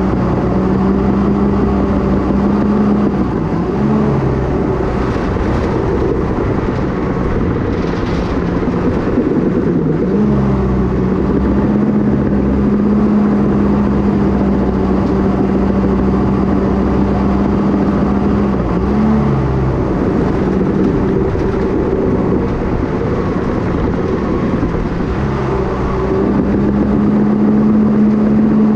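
Cat D5K bulldozer's diesel engine running steadily under load while pushing rock and dirt with the blade. Its pitch dips briefly and recovers several times.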